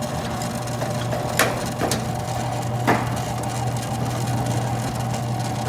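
Manaras door operator's electric motor running steadily as it drives the door open, a low hum with a higher whine over it. A few sharp clicks or knocks come through, the loudest about three seconds in.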